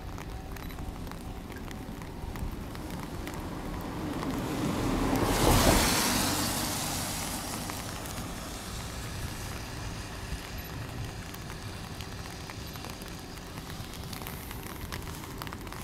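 Hokuriku Railroad 8000-series electric train passing. Its noise builds to a peak about five and a half seconds in, then fades away slowly over a faint steady hum.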